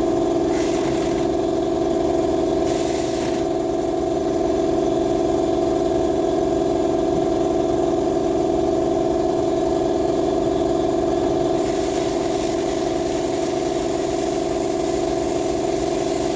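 A steady mechanical hum with a constant pitch runs throughout. Over it come two short hisses about half a second in and near three seconds, then a longer hiss from about two-thirds of the way through: an aerosol can of WD-40 being sprayed.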